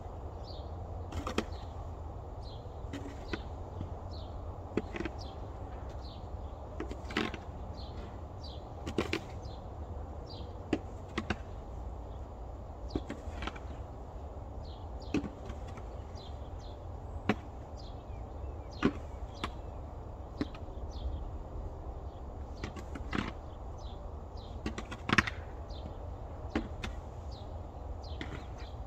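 Footsteps crunching through deep fresh snow, one sharp crunch every second or two, over a steady low rumble.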